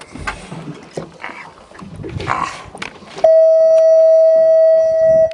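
Irregular knocks and scuffing for about three seconds, then a loud steady tone at one pitch starts suddenly and holds for about two seconds before cutting off.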